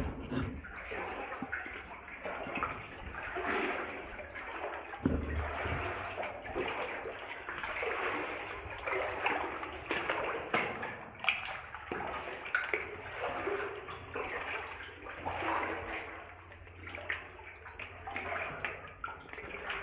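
Water sloshing and splashing around a person's legs as he wades through water above the knees in waders, surging with each stride.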